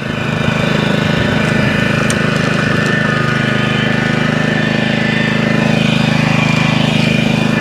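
Honda GXV160 single-cylinder mower engine running steadily at speed, picking up a little in the first second and then holding an even note.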